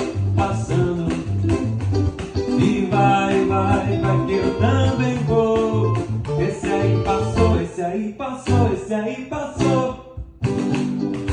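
Upbeat Brazilian dance music in an instrumental stretch between sung lines, with a pulsing bass line under a melody; it drops out briefly near the end.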